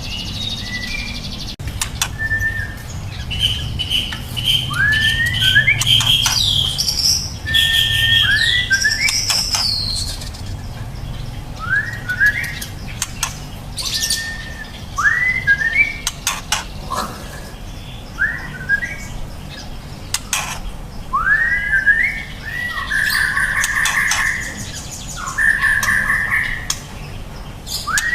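Juvenile white-rumped shama singing: short rising whistled notes repeated every few seconds, with higher, busier phrases in between.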